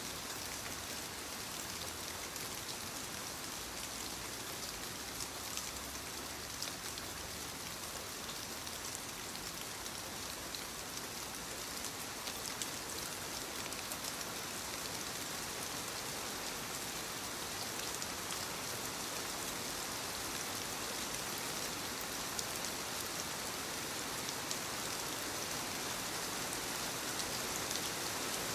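Soft rain falling steadily on leaves: an even hiss of many small drop patters.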